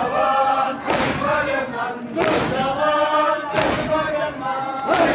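A large crowd of men chanting a noha lament in unison, with a loud collective thud of hands striking chests (matam) about every second and a third, four times.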